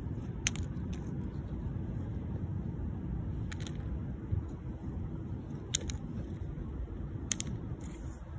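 Steady low outdoor rumble with four short, sharp clicks spread about two seconds apart.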